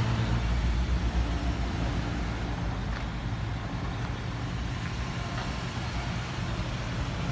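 Ford E-Series box truck's engine idling: a steady low hum, slightly louder in the first second or so.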